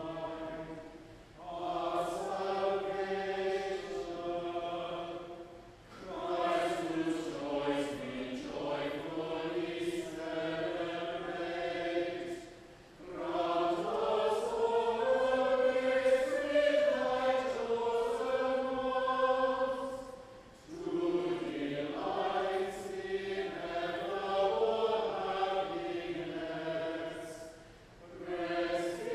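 Unaccompanied plainchant, sung in long phrases with short pauses for breath every several seconds.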